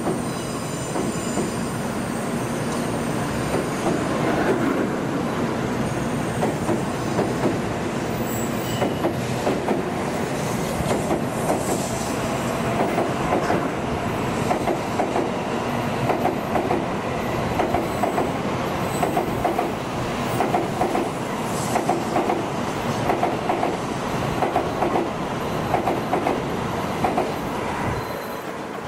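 A train running past on the rails, a steady rumble and rush with wheels clacking in a regular rhythm of about one pair of clacks a second through the second half.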